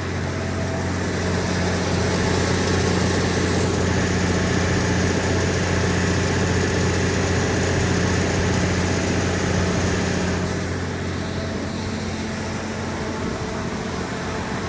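Cummins NTA-855-G2 turbocharged inline-six diesel running steadily in a 300 kW generator set. It grows louder a couple of seconds in and settles back down after about ten seconds.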